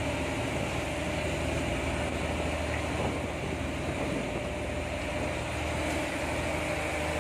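Fishing boat's engine running steadily: an even drone with a low hum that does not change.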